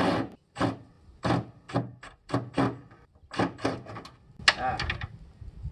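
A quick, irregular series of a dozen or so knocks, clicks and scrapes from hand tools being handled while a drill bit is swapped.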